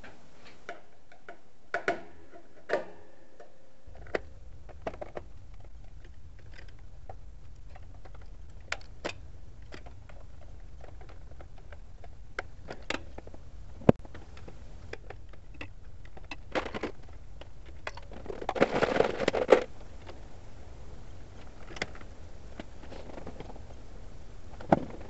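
Scattered clicks, taps and rattles of hands and small tools working wires in a metal electrical box, with a denser rattling scrape about nineteen seconds in. A low steady hum comes in about four seconds in.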